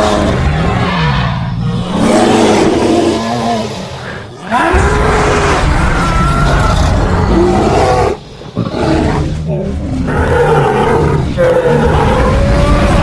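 Creature sound effects: a run of loud roars and growls whose pitch bends up and down, cut together from stock dinosaur, alligator and bear sounds, with two short breaks about four and eight seconds in.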